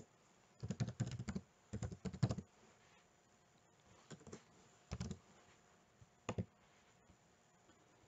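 Computer keyboard typing: two quick bursts of keystrokes in the first couple of seconds, then a few single clicks spread out, with stillness between them.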